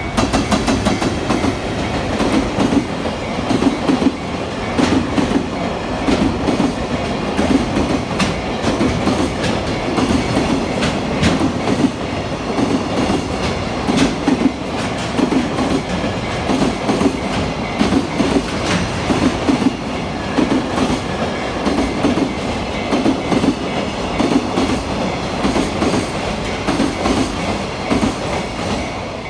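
JR Freight EF210 electric locomotive and its long train of container wagons passing at speed: a loud, steady rumble of wheels on rail with a regular clickety-clack from the wheelsets over the rail joints.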